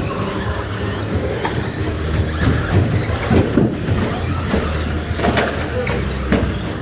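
A pack of RC stock trucks racing around the track: a steady run of motor and tyre noise, with a few sharp knocks partway through.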